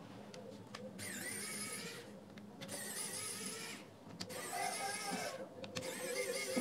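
Electric precision screwdriver whining in about four short runs of roughly a second each, its pitch wavering with the load as it backs out the small screws holding the speaker's passive radiator.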